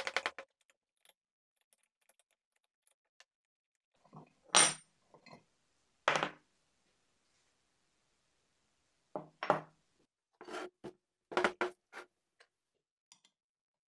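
Scattered short clanks, knocks and scrapes of steel on the rusty cast-iron body of an old bench vise as it is taken apart by hand: a tool working inside the body, a loose steel plate lifted out and set down, and the heavy body shifted on the bench. They come in separate clusters with quiet gaps, the loudest knocks about four and a half and nine and a half seconds in.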